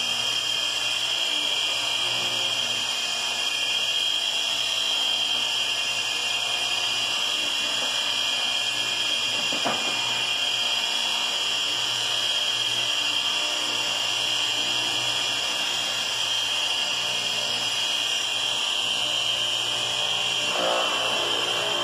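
Rail-weld grinder running with its motor and abrasive wheel spinning, a steady high whine. A rougher sound joins near the end.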